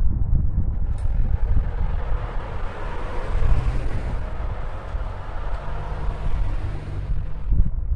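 A vehicle passing, its noise swelling in about a second in and fading away near the end, over a low wind rumble on the microphone.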